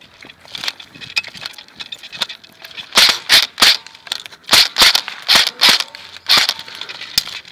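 An airsoft rifle firing about ten single shots in quick, uneven succession, each a sharp crack, starting about three seconds in. Before that, softer clicks and rustling.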